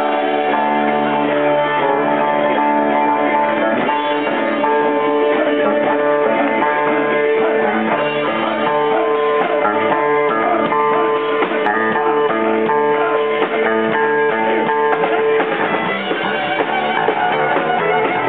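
A Celtic rock band playing live, with electric guitar and a drum kit, long notes held through the middle of the passage.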